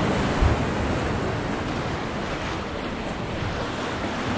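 Ocean surf washing against jetty rocks, a steady rush, with wind on the microphone. A brief low thump comes about half a second in.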